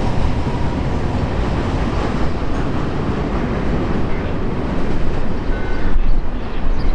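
Freight train tank cars rolling past on the main line: a loud, steady rumble of steel wheels on the rails that grows a little louder near the end.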